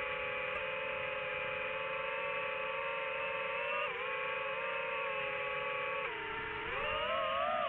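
DJI FPV drone's motors and propellers whining at a steady pitch, dipping briefly about four seconds in, then sagging and rising again near the end as the throttle changes.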